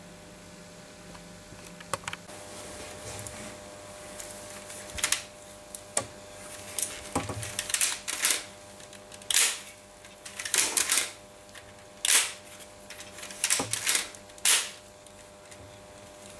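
Plastic Lego and Technic parts of a brick-built gun mechanism clicking and clacking as it is handled and worked by hand. About a dozen sharp clicks and short rattles come at uneven intervals, the loudest in the middle stretch.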